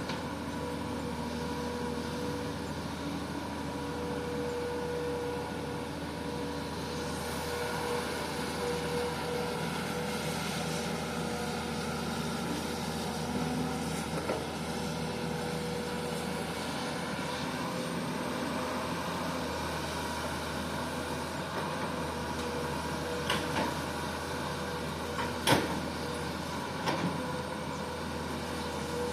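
Komatsu PC200 excavator's diesel engine running steadily with a constant whine. Toward the end come a few sharp metallic knocks, one clearly louder than the rest.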